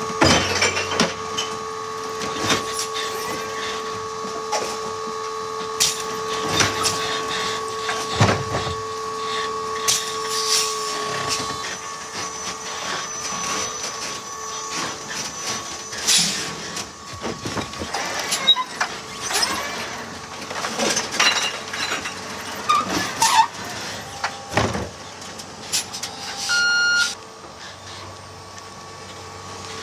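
Heil electric side-loader refuse truck working its automated arm: a steady whine from the electric drive and hydraulics for about the first eleven seconds, then repeated clanks and knocks of the arm, cart and recyclables as the truck moves on. A short beep near the end.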